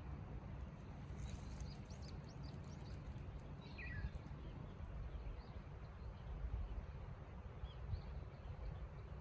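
Wind rumbling on the microphone, with small birds chirping: a quick run of high chirps about a second in, one call that falls in pitch near the middle, and a few scattered chirps later.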